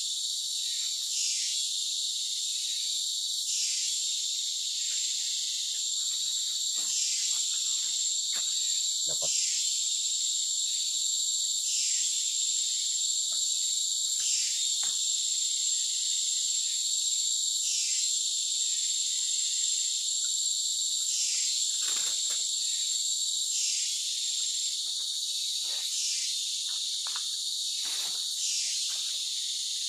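Chorus of forest insects: a steady high-pitched buzz that swells briefly about every two and a half seconds, with a few faint clicks and knocks.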